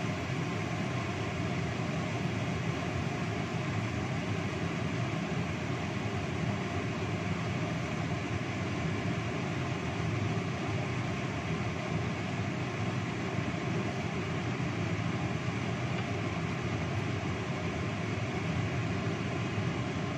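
Steady hiss and rumble of a wok of stir-fried water spinach cooking on a lit gas burner, with no separate knocks or clanks.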